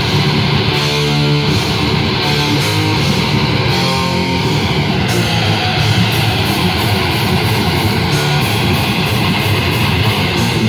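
Live heavy metal band playing loud distorted electric guitars over bass and drums.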